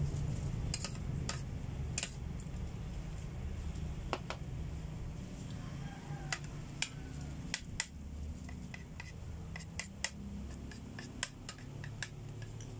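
Metal fork clinking and scraping against a ceramic plate of spaghetti in irregular sharp clicks, over a steady low background rumble.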